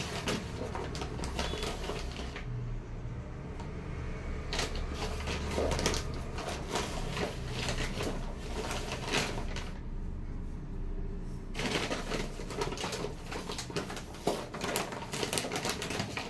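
Rice flour being scooped with a steel glass and tipped into a steel bowl of flour: three spells of rapid scraping and tapping clicks, metal on metal with the hiss of flour sliding.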